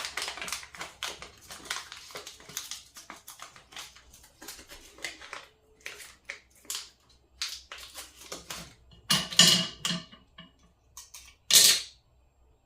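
Batteries and the small plastic-and-metal kit being handled as batteries are fitted into its holder: a run of small clicks and rattles, with two louder clatters near the end.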